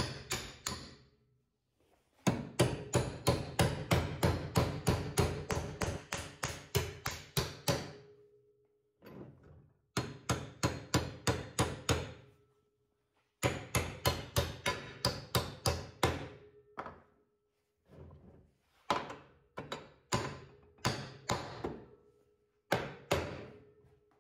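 Claw hammer striking mounting bolts to drive them down through a bench vise's base holes into a wooden workbench, where they were catching because the angle wasn't perfect. The blows come in quick runs of about four or five a second with pauses between, then as slower single blows near the end. A faint metallic ring follows many of the strikes.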